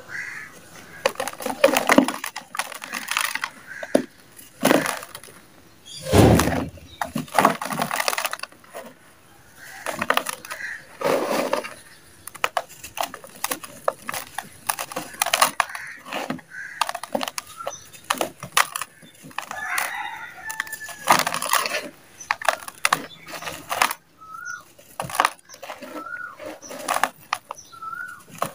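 Hands crushing and crumbling dry dirt chunks in a plastic tub: irregular crunches and gritty crumbling as the lumps break and the dust pours down. Chickens cluck in the background, mostly in the second half.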